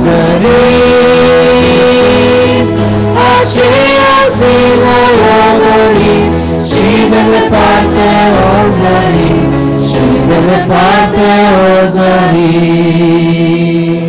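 A vocal group of three women and a man singing a hymn together into handheld microphones, amplified through the church sound system.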